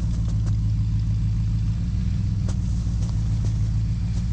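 A vehicle engine running steadily at a constant speed, a low even drone, with a few faint clicks over it.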